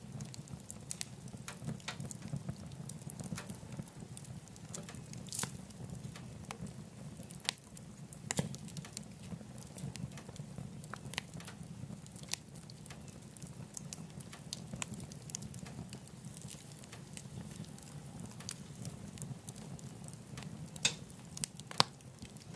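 Wood burning in a wood stove: irregular sharp crackles and pops over a low, steady rumble of the fire.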